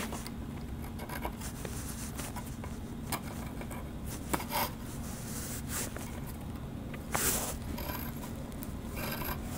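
Pencil compass scraping on plywood as it marks a radius: a few short, scratchy strokes over a steady low hum.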